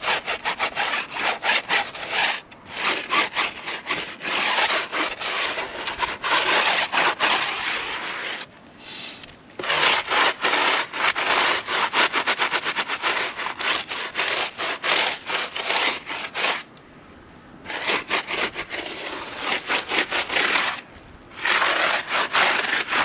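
Stiff scrub brush scrubbing a wheel and tyre in rapid back-and-forth strokes, stopping briefly three times.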